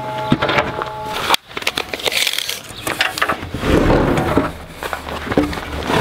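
Rough wooden boards handled at a miter saw stand: irregular knocks, scrapes and rubbing of wood on wood and metal. A steady hum at the start stops abruptly about a second and a half in.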